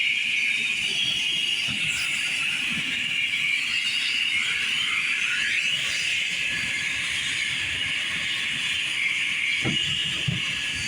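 Police helicopter's turbine engine running with a steady high-pitched whine, the pitch gliding slightly about halfway through; a few low thumps near the end.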